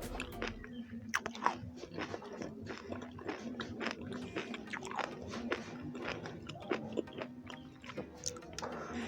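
A person chewing and biting food, close to the microphone, with irregular sharp crunching clicks. A faint steady hum runs underneath.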